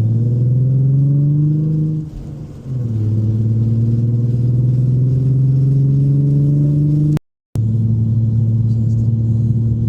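Car engine accelerating through the gears, its pitch climbing, dipping at an upshift about two seconds in, then climbing again. About seven seconds in, the sound cuts out completely for a moment and comes back at a steady, lower pitch.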